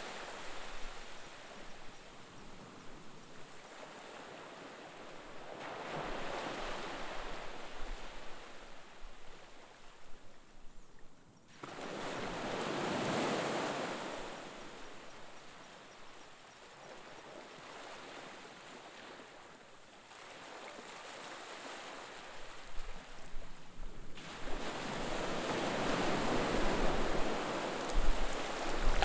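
Sea waves breaking and washing onto a shore: the surf swells and recedes in long surges, three larger ones standing out, the last building toward the end.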